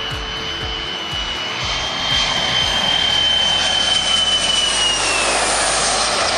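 Boeing 737 jet airliner on landing approach, passing low and close. The rushing engine noise builds over the first couple of seconds, with a steady high whine on top that drops in pitch near the end as the plane goes by.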